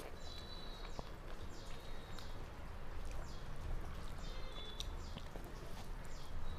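Chewing and mouth sounds of someone eating rice by hand, with soft wet clicks and squelches as fingers mix rice on a metal plate.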